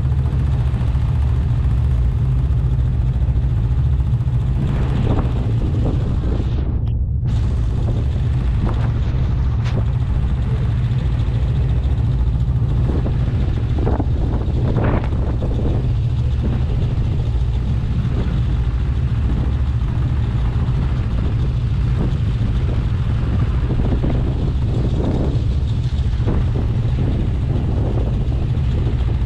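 Snowmobile engine running steadily on the move, a continuous low drone with scattered short surges.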